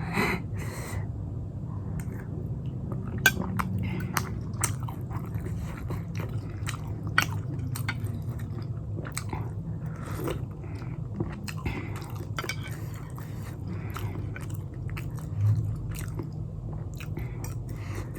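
Close-miked chewing and biting of pan-fried momos in jhol (a spicy, soupy chutney), with many short wet smacks and clicks.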